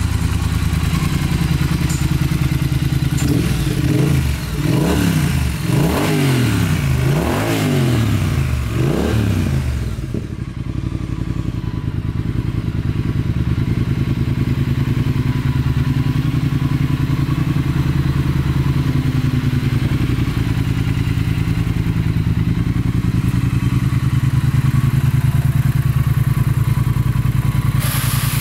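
Triumph Thruxton 1200R's parallel-twin engine idling, blipped several times in quick succession a few seconds in, each rev rising and falling, then settling back to a steady idle.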